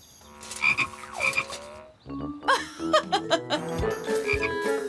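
Cartoon frog croaking sound effects: short ribbits, often in pairs, repeating about every second, with a brief lull about two seconds in.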